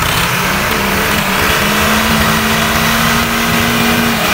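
Massey Ferguson tractor engine running loudly and speeding up, its note stepping higher a little under two seconds in and held there.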